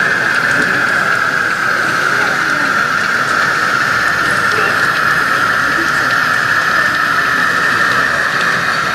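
A model British Rail Class 56 diesel locomotive running slowly along the layout, giving a steady high whine that drifts slowly down in pitch.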